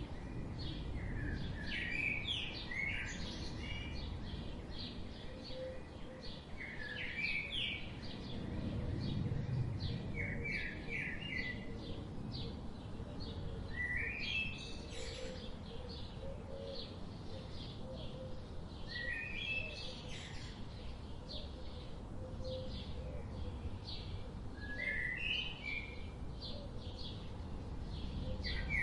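Songbirds singing in a chorus. One bird repeats a short phrase of quick stepped notes every few seconds, while others keep up many brief high chirps, over a low steady background rumble.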